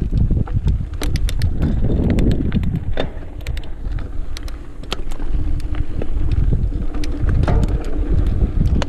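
Mountain bike rolling down a dirt singletrack: wind buffeting the microphone with a heavy low rumble, and irregular sharp clicks and rattles from the tyres on dirt and the bike shaking over the trail.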